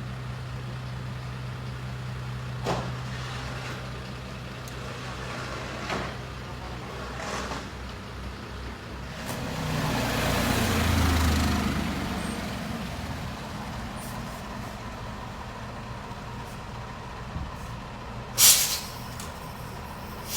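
Heavy truck engine running with a steady low hum. It swells as a vehicle goes by about ten seconds in, and a short, loud hiss of released air, like an air brake, comes near the end.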